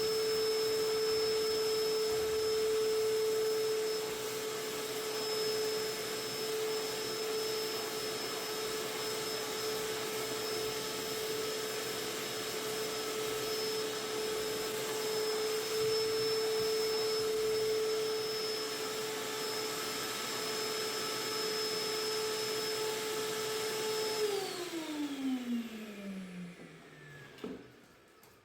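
Vacuum cleaner running with a steady whine, then switched off about 24 seconds in, its motor's pitch falling away as it spins down.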